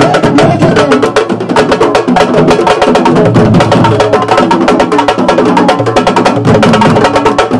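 An ensemble of sabar drums, the tall pegged Senegalese drums struck with a stick and the bare hand, playing a fast, dense rhythm of sharp strokes over deeper drum tones.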